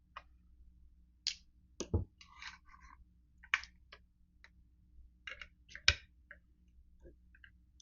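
Metal parts of a Winchester Model 1897 pump shotgun clicking, knocking and scraping as they are worked loose by hand during disassembly. The two strongest knocks come about two seconds and six seconds in, with a brief scrape just after the first.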